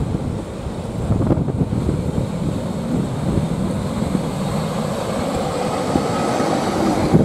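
Heritage passenger carriages of a steam-hauled train rolling slowly past at close range, wheels rumbling on the rails, with occasional clanks about a second in and near the end.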